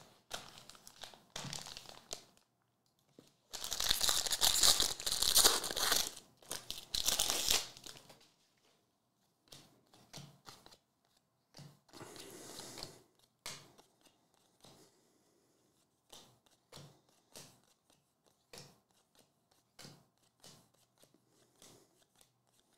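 Foil wrapper of a baseball card pack being torn open and crinkled, loudest from about four to eight seconds in, with a shorter crinkle near the middle. Through the rest, soft short clicks and slides of cards being thumbed through by hand.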